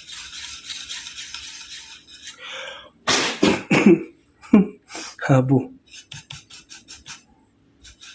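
A small brush scrubbing dust off a laptop circuit board in quick, even strokes, interrupted in the middle by several short, loud puffs of breath blowing the loosened dust away; the brushing strokes resume near the end.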